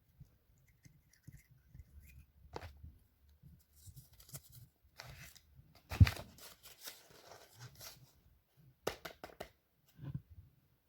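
A blind bag's packaging being handled and torn open by hand, with rustling and crinkling, a thump about six seconds in, and a few sharp clicks near the end.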